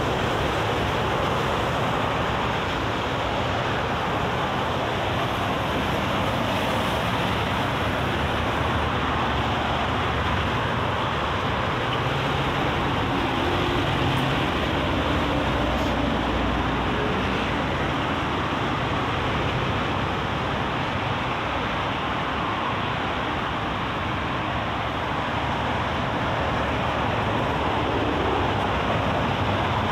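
Steady expressway traffic noise: cars, trucks and buses passing in both directions, a constant rush of tyres and engines with no single event standing out.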